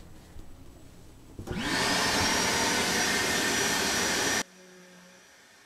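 An electric motor whines up to speed about a second and a half in, runs steadily for about three seconds, then stops abruptly.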